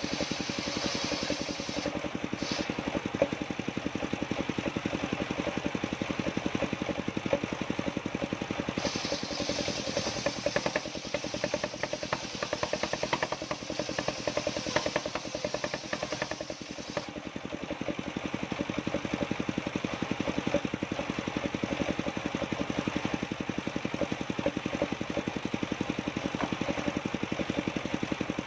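An engine running steadily, with an even, rapid beat.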